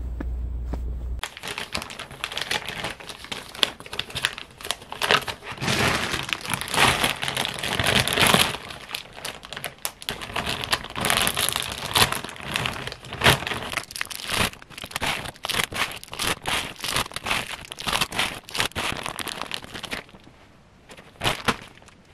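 A clear plastic bag full of individually wrapped Halls candies crinkling and rustling as it is handled, in dense, irregular crackles. It starts suddenly about a second in, after a low steady rumble, and dies down near the end.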